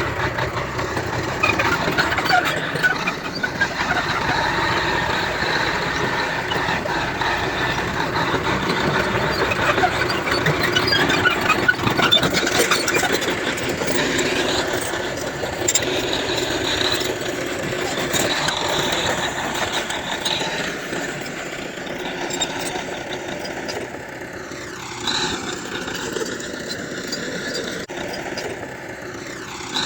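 Heavy diesel earthmoving machinery, a bulldozer and dump trucks, running steadily under work. Near the end the engine sound shifts in tone as a machine moves.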